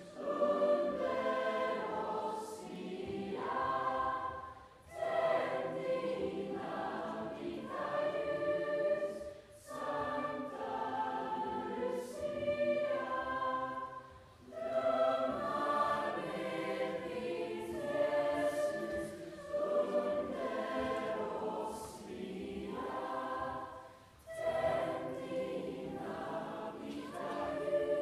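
A school Lucia choir singing, phrase after phrase, with short breaks for breath every four to five seconds.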